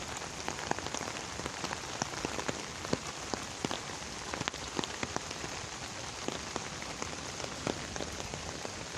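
Steady heavy rain falling, with many individual drops ticking sharply on a nearby surface.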